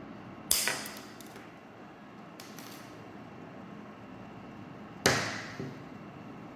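Cutters snipping through a thin metal hair clip: two sharp snaps, about half a second in and again about five seconds in, with a few small clicks of handling between them.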